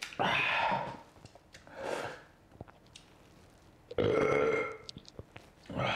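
A man burping several times after swallowing beer, two loud burps about four seconds apart with softer ones between and at the end.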